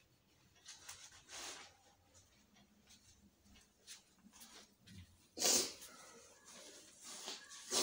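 Faint sniffs and unsteady breaths of a woman who has just been crying. A louder rustle of clothing and phone handling comes after about five seconds.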